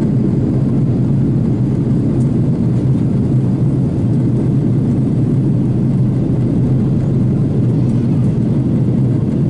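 Steady cabin noise inside an Airbus A330 airliner on descent: a constant low rumble of engines and rushing air with a steady hum, unchanging throughout.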